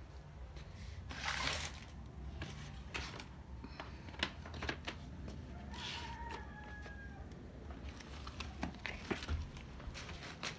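Handling noise from a phone held against the body: rustling and brushing of clothing and skin over the microphone, with scattered clicks and two louder brushes, one about a second in and one near six seconds. A steady low hum runs underneath.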